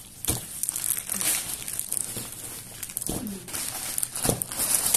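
Plastic wrapping crinkling and rustling as a package is handled, with a couple of dull knocks, one just after the start and one near the end.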